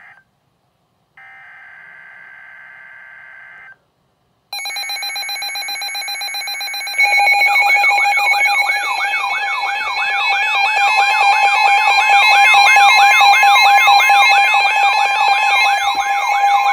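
Emergency Alert System broadcast tones: harsh buzzing bursts of the digital SAME header data, the last ending about 4 seconds in and then a louder one about 4.5 seconds in, then from about 7 seconds a loud steady attention tone with a rapidly warbling, sweeping tone layered over it.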